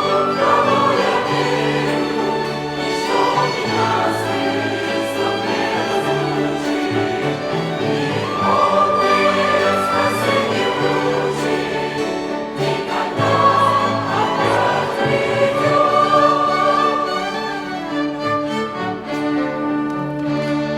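Church choir singing a hymn in full harmony, accompanied by a violin ensemble.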